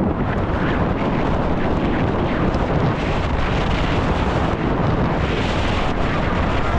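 Heavy wind buffeting the microphone of a downhill mountain bike ridden at race speed, with the knobby tyres rolling over dry, rocky dirt and the bike rattling over the rough trail in a continuous string of small knocks.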